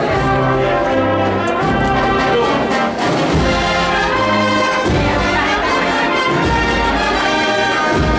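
An agrupación musical, a Spanish Holy Week processional band of cornets, brass and drums, playing a processional march with sustained brass melody over low bass notes and drum strokes.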